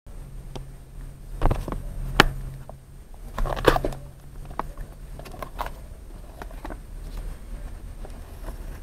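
Handling and opening a cardboard box: scattered knocks, taps and scraping of cardboard, the sharpest knock a little over two seconds in and a cluster of rustles and taps a second later, over a faint steady low hum.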